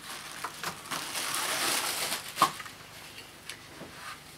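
Plastic wrapping rustling and crinkling as a vacuum cleaner's hard floor nozzle is pulled out of its bag and cardboard insert, with a sharp knock about halfway through, after which it goes quieter.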